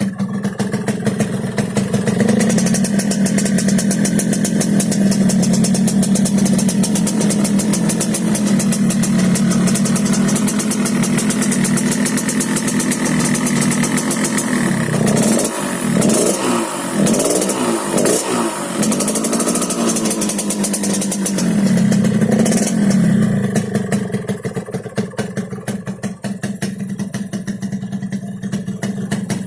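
Yamaha RX-King's single-cylinder two-stroke engine running through an exhaust set up for a 'ngorok' (snoring) sound, with a rapid crackling firing beat. Steady at first, it is revved up and down several times around the middle, then settles back to a slower idle near the end.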